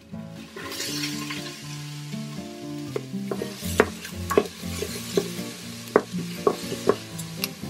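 Diced onion sizzling as it lands in the hot stainless steel inner pot of an Instant Pot, then stirred with a wooden spatula. The spatula knocks and scrapes against the pot about a dozen times over the second half.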